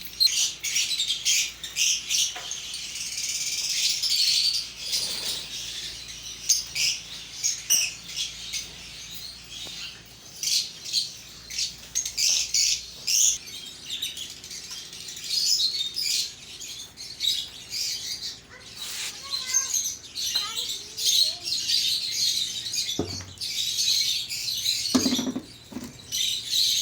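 Many small parrots chattering and chirping together, a dense, continuous mass of short high-pitched calls overlapping one another.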